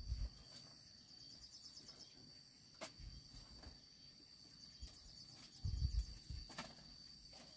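Low thumps and sharp clicks from a slatted bamboo bed platform as a person climbs onto it, loudest about six seconds in. Under them runs a steady high-pitched insect drone.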